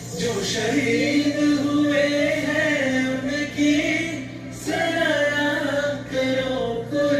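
Dance mash-up of patriotic songs playing: voices singing a melody over a steady held accompaniment.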